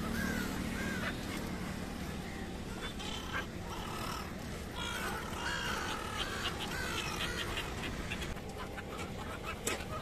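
A flock of black-headed gulls calling: short, harsh, repeated calls in several bursts over a steady background hum.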